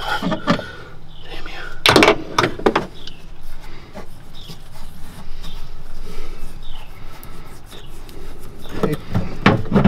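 Metal knocks and clinks of hand tools and drive-shaft parts being worked on a Polaris RZR driveline, the loudest knock about two seconds in, with faint short squeaks of metal parts afterwards.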